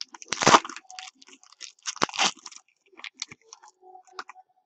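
A trading-card pack wrapper being torn open and crinkled, with two sharp tearing crackles about half a second and two seconds in, followed by lighter crinkling as the wrapper is handled.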